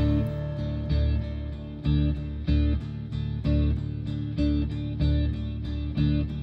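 Music: a guitar intro strummed in a steady, repeating rhythm, with no singing.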